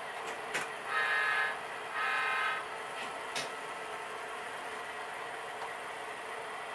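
HO-scale diesel locomotive's sound decoder sounding two horn blasts through its small speaker, over the steady hum of the model train running. A couple of sharp clicks come before and after the blasts.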